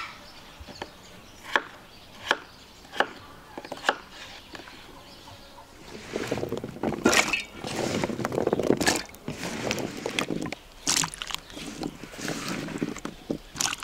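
Five sharp knocks on wood, a little under a second apart, like chopping on a board. From about halfway through, several seconds of wet sloshing and splashing follow, broken by short pauses.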